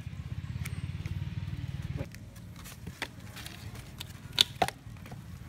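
Wooden logs knocking against each other as they are stacked between bamboo stakes: a small knock about three seconds in and two sharp clunks close together about a second later. A low engine-like drone runs for the first two seconds and then stops.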